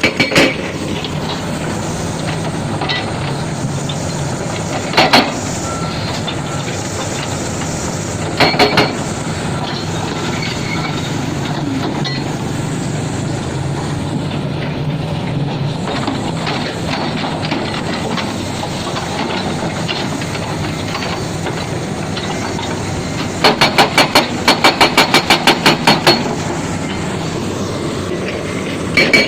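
Heavy construction machinery running steadily, its diesel engine droning. Short bursts of rapid metallic strikes come about 5 and 8 seconds in, then a longer run of about a dozen strikes, roughly four a second, near the end.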